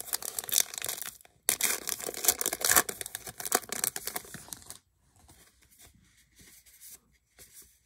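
A 2020 Topps Allen & Ginter trading-card pack wrapper being torn open and crinkled: a dense crackle for most of the first five seconds, with a brief pause, then fainter rustling as the wrapper comes off and the cards are handled.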